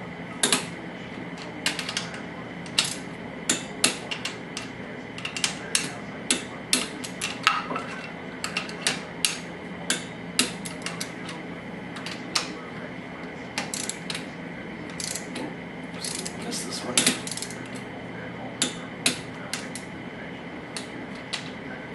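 Ratchet and torque wrench working the cylinder-head bolts of a 2001 Yamaha R6 engine: irregular sharp metallic clicks and clinks of the tools against the bolts and head, sometimes in quick runs.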